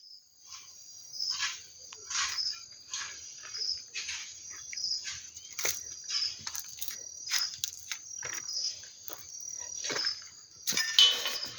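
Crickets chirping steadily in a high, continuous trill, with other short repeated calls about once a second. Near the end a loud rushing noise sets in.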